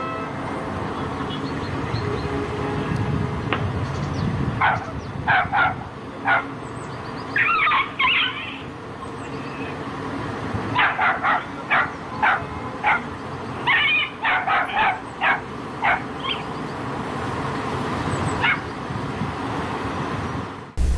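A small dog yipping: short, high yelps and barks in quick clusters, some stretched into a whine.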